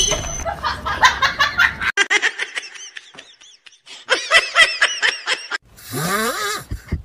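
Human laughter in runs of quick 'ha-ha' bursts. About six seconds in it gives way to a snore, a slow rising groan.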